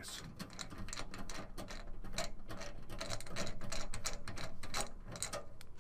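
Torx screwdriver backing a screw out of a PC tower's sheet-metal case: a quick, irregular run of small metallic clicks and scrapes as the driver turns.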